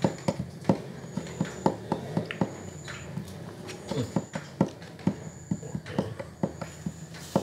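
Playing cards being handled and laid down on a wooden bench: a run of irregular sharp clicks and taps. A faint high chirp repeats about once a second.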